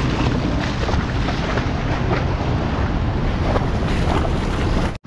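Wind buffeting the microphone as a loud, steady rush, with water splashing over a low engine hum. The sound drops out abruptly for a moment near the end.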